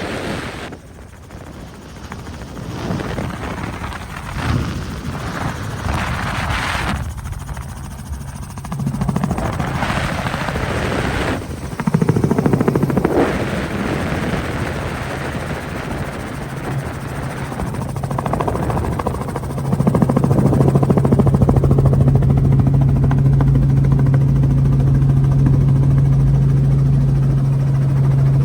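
Helicopter in flight, heard from its open doors-off cabin. An uneven rushing noise comes first, then from about twenty seconds in a louder, steady low drone sets in.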